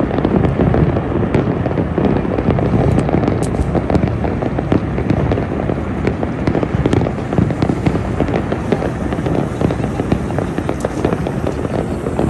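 Fireworks going off in a continuous, dense barrage of bangs and crackling, with no break.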